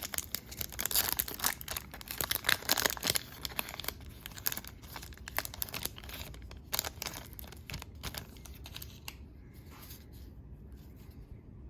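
Foil wrapper of a baseball card pack being torn open and crinkled, with dense crackling through the first few seconds, then lighter rustling that dies down near the end.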